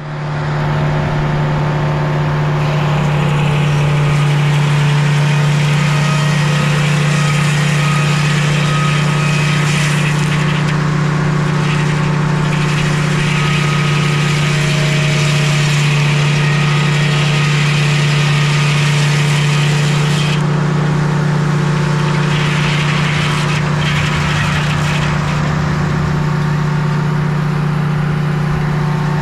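Sawmill running steadily with a constant engine drone, while a hiss from the blade cutting through the log rises and falls.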